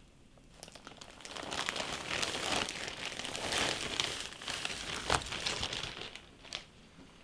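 Clear plastic bag crinkling and rustling as a mass of long hair is unwrapped and pulled out of it, with one sharper crackle about five seconds in, then dying away near the end.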